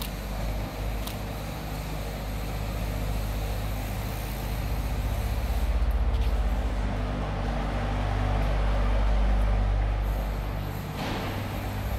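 Engine of a heavy road vehicle, such as a truck or bus, running in the street. It is a low, steady rumble that grows louder toward the middle, with a short burst of hiss about eleven seconds in.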